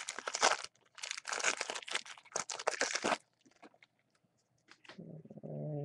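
Crinkly plastic-foil wrapper of a baseball card pack being handled and torn open, a dense crackle for about three seconds that then stops. Near the end, a short low hum, like a voice.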